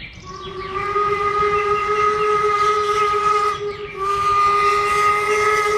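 Steam locomotive whistle blowing two long, steady blasts, with a short break about four seconds in, over the hiss of steam.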